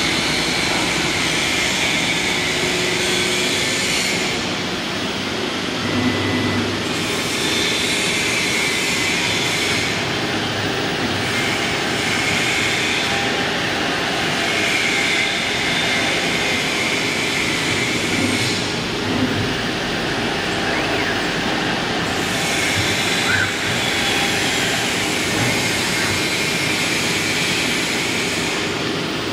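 CNC wood router running, its spindle cutting into a wooden board: a loud, steady machine noise with a high whine that comes and goes every few seconds as the cut goes on.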